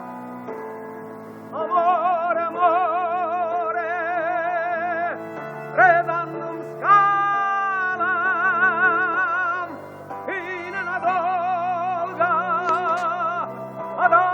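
A song: a voice holding long notes with a wide, even vibrato over a sustained accompaniment, the phrases breaking off every few seconds.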